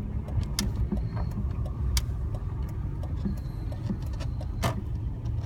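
Car cabin noise while driving slowly in traffic: a steady low engine and road rumble, with a few sharp clicks, the loudest about two seconds in and near the end.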